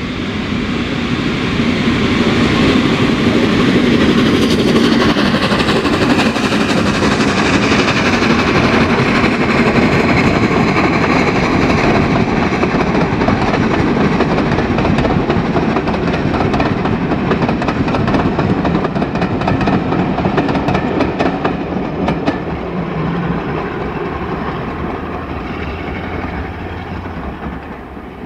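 Steam locomotive hauling a passenger train past, a loud rush of running noise that builds at the start and fades as the train draws away. About two-thirds of the way through comes a quick run of sharp clicks from the coaches' wheels going over rail joints.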